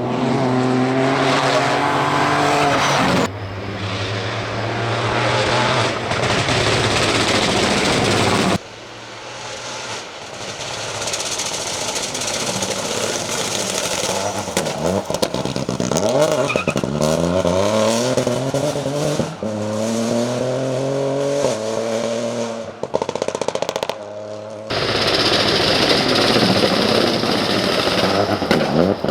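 Peugeot 208 Rally4's turbocharged three-cylinder engine at full rally pace, revs climbing hard through the gears and dropping on the shifts and lifts. The sound changes abruptly a few times.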